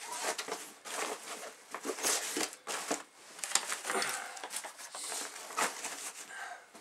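Fabric of a 5.11 Rush 72 backpack rustling and scuffing as gear is pushed down into its main compartment, in a run of short crinkling scrapes with a few sharp clicks of hard items knocking together.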